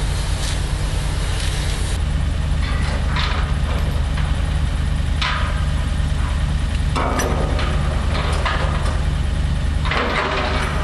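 A heavy engine idling steadily with a deep hum, with short noises coming and going over it.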